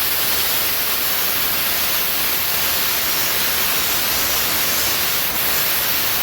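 Loud, steady hiss of noise spread evenly across all pitches, starting and cutting off abruptly.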